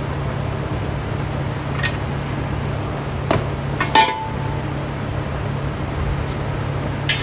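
A few sharp metallic clinks from small transmission parts being handled and set down, one about four seconds in ringing briefly, over a steady loud low hum of background noise.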